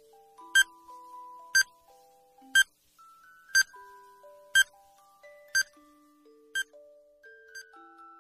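Countdown timer sound effect ticking once a second, seven sharp ticks, the last one weaker, then stopping as the count reaches zero. Under it runs soft background music, a gentle tune of held notes.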